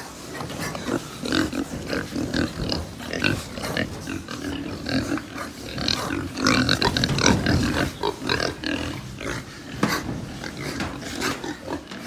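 A pen of young pigs calling close up: many short, overlapping calls in an irregular stream, loudest about six to eight seconds in.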